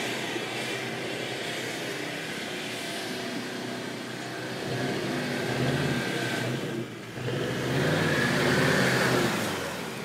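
A 4x4 SUV's engine revving hard as it spins its wheels round in circles on wet grass. The revs come in two rising surges in the second half.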